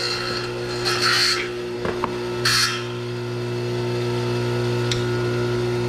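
Electric tile saw motor running with a steady hum, and two short grinding bursts about one and two and a half seconds in as the blade cuts into tile.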